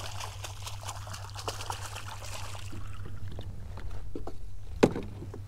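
Hooked speckled trout thrashing at the surface beside a kayak, water splashing in quick small spatters over the first few seconds. About five seconds in comes a single sharp knock.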